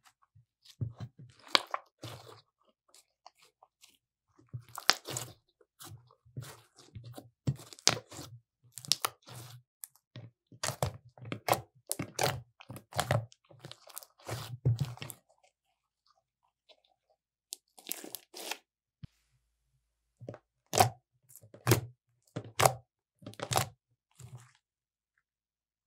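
Purple glossy slime being kneaded, squeezed and poked by hand: a string of short, irregular wet squelches and air-pocket pops, with a pause about two-thirds of the way through.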